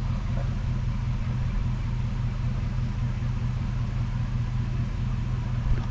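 Vehicle engine running steadily at low revs, with one low thump near the end.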